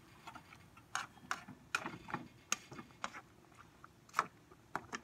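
Spatula knocking and scraping against a frying pan while stirring vegetables: a string of light, irregular clicks, roughly two a second.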